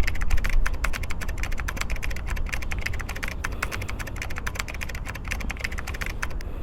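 Rapid keyboard typing: a dense run of clicks over a low rumble, stopping shortly before the end.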